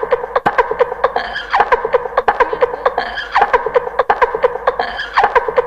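Hip-hop track playing an instrumental stretch with no rapping: a short vocal-like pitched phrase loops about every second and a half over rapid clicking percussion.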